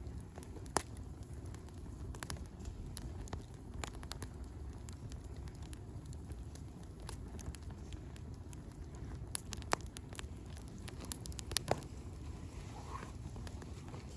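Wood campfire burning with a steady low rush and scattered sharp crackles and pops, a few of them bunched together past the middle.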